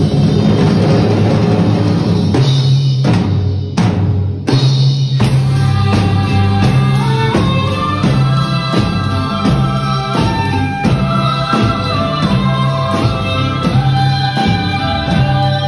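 Several drum kits played together by children, keeping a steady beat over recorded backing music with a melody. A few heavy hits stand out around four to five seconds in.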